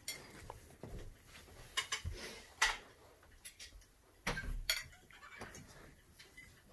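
A European badger scrabbling and nibbling at a person's clothed leg and hand on a fabric sofa: irregular soft clicks, scuffs and fabric rustling, with sharper clicks about two and a half and four and a half seconds in.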